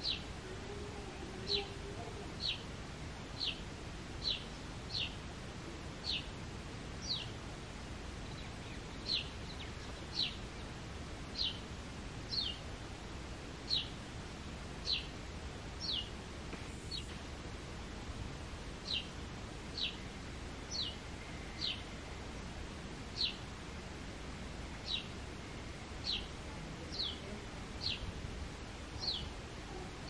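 Male house sparrow calling: short single cheep notes, each falling quickly in pitch, repeated about once a second with small irregular gaps.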